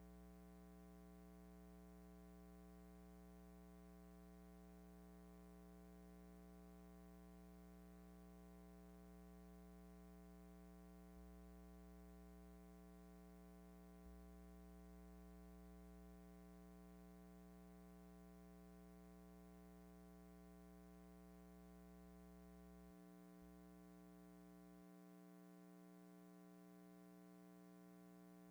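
Near silence: only a faint, steady hum with no other sound.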